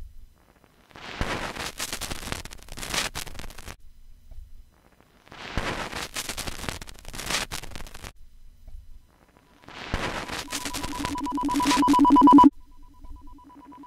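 Experimental electronic music: three bursts of static-like noise, each about two and a half seconds long with silent gaps between, then a rapidly pulsing pair of low and higher tones that swells louder and cuts off suddenly near the end, carrying on more softly.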